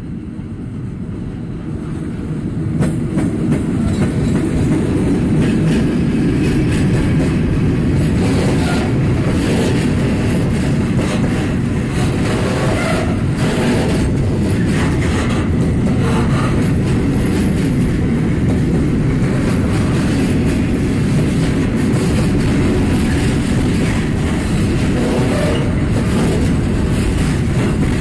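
Container freight train passing close by at speed. The rumble builds over the first few seconds as the locomotive approaches and goes past, then holds as a steady rolling roar of the container wagons' wheels on the rails, with scattered clicks over the rail joints.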